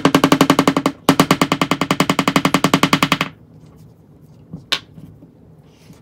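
A rapid drum roll, about fourteen strokes a second, with a brief break about a second in and a sharp stop about three seconds in, followed by a single short click.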